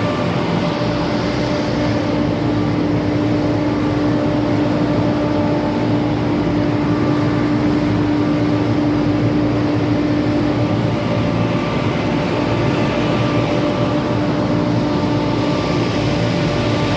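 Large cooling-tower fan and its drive motor running, a loud, steady whir with a hum that weakens about two-thirds of the way through.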